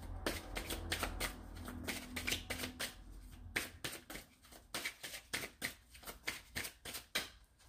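A deck of cartomancy cards being shuffled by hand: a long run of quick, irregular card clicks.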